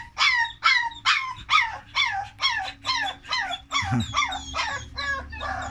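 Puppy yelping over and over in high cries, each falling in pitch, about three a second without a break.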